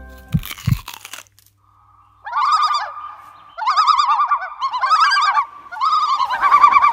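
High, bird-like warbling call in four fast-trilled phrases, starting about two seconds in. Before it comes a brief rustle with a couple of low thumps.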